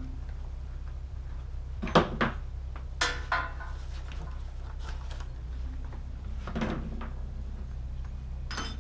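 Scattered knocks and clatters from tools and parts being handled, over a steady low hum. One knock about two seconds in, a double knock with a short metallic ring a second later, another knock around six and a half seconds, and a bright clink near the end.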